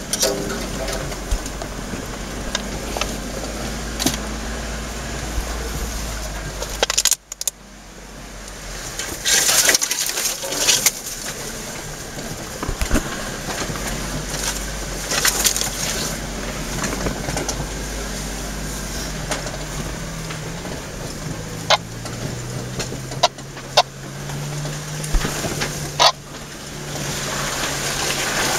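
A 4x4's engine running at low trail speed on a rough dirt track, heard from inside the cab, with scattered sharp knocks and rattles as it goes over bumps. The sound drops out briefly about seven seconds in, and a rising rush of noise builds near the end.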